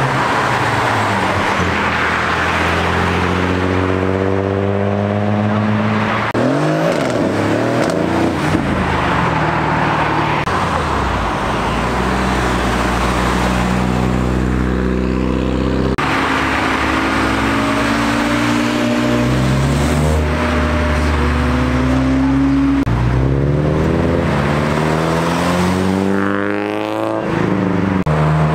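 Several modified cars accelerating away one after another. Each engine's pitch rises as it revs up through a gear, then drops at a shift or a cut to the next car, with steadier cruising passes in between.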